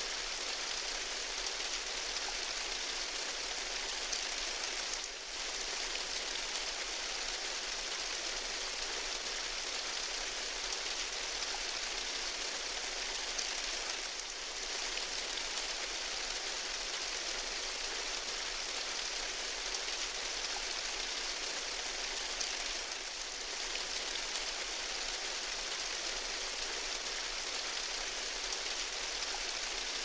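Steady heavy rain falling on a corrugated tin roof, a dense even patter and hiss, with three brief slight dips in level.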